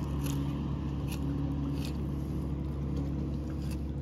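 A steady low engine drone, with a few faint short scrapes.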